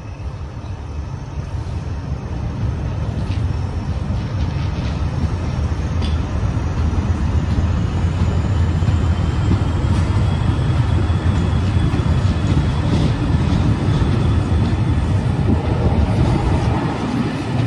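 Hastings diesel multiple unit 'Thumper' pulling away under full power, its English Electric four-cylinder diesel engine throbbing hard and growing steadily louder as the train gathers speed.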